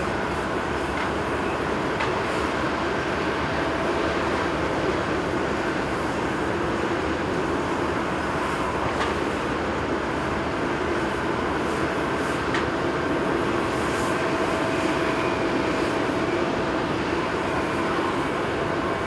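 Airbus A350-1000's Rolls-Royce Trent XWB-97 jet engines at taxi idle, heard from afar: a steady rumble with a thin whine held on one pitch.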